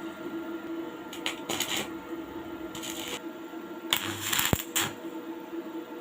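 Welding arc crackling in short bursts on a broken steel knife blade, the longest and loudest about four seconds in, over a steady electrical hum.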